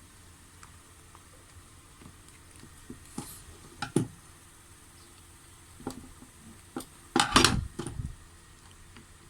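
Scattered clicks and knocks of a hard plastic power-tool housing, the two halves of a Makita TD131D impact driver's body being handled and pried at while they refuse to split, with a louder clattering cluster about seven seconds in.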